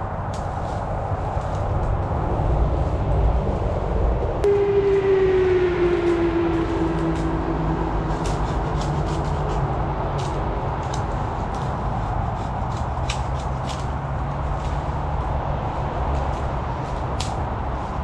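Steady rumble of motorway traffic, with one vehicle's engine note standing out about four seconds in and sinking in pitch as it goes past. Short cracks and rustles of twigs and branches being snapped and dragged while brush is cleared.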